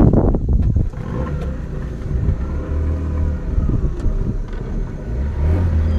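A small boat's outboard motor running at a steady speed, a low drone with water and hull noise over it.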